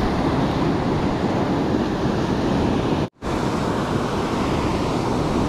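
Ocean surf breaking and washing up the beach, a steady rushing wash with wind buffeting the microphone. The sound cuts out for an instant about three seconds in.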